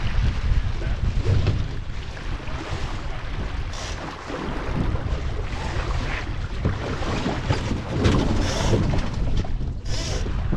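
Wind buffeting the microphone over water rushing along the hull of a Melges 15 sailing dinghy under way, with a few brief hissing splashes of spray.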